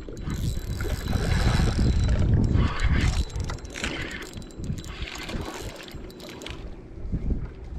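Wind buffeting the microphone, with the deep rumble strongest about one to three seconds in, over a spinning reel being cranked as a small striped bass is reeled to the boat.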